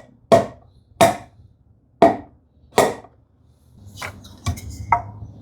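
Four sharp hammer taps on wood, about a second apart, tapping a dry-fitted wooden drawer part into the cabinet opening, followed by a few lighter knocks and clicks of the wood near the end.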